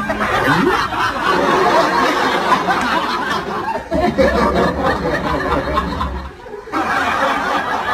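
A group of people laughing and talking over one another, with a short lull a little after six seconds in.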